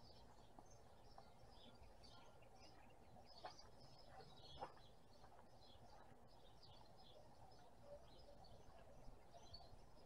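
Faint, scattered chirping of small songbirds, many short chirps throughout, with two faint clicks about three and a half and four and a half seconds in.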